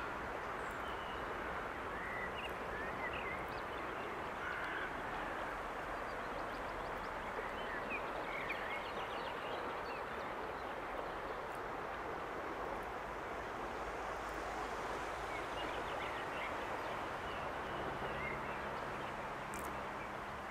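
Woodland birds calling with short, scattered chirps and a brief rapid trill, over a steady outdoor hiss.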